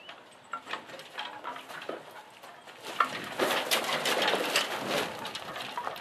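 18 hp Noma lawn tractor being pushed by hand down metal loading ramps off a pickup bed: scattered clanks and creaks, then a louder rattling clatter about three seconds in as the wheels roll down the ramps onto gravel, lasting a couple of seconds.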